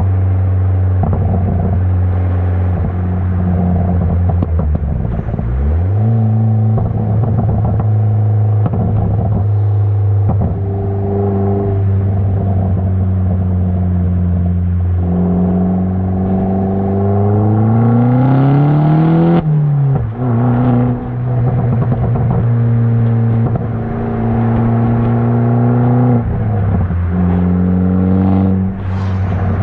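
Opel Corsa OPC's turbocharged four-cylinder engine with a custom-made exhaust, driven through the gears. It runs mostly at steady revs, with a quick rise about six seconds in. About halfway through it climbs in revs for several seconds, then drops sharply at a gear change. Near the end the revs dip and rise again.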